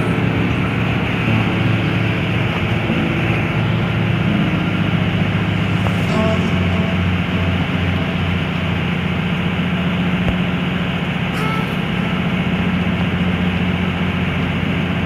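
Harbour tug's machinery running with a loud, steady low drone and hum.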